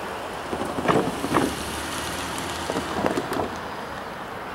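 Wind buffeting the microphone: a steady rushing noise with a few short knocks, two about a second in and a cluster around three seconds.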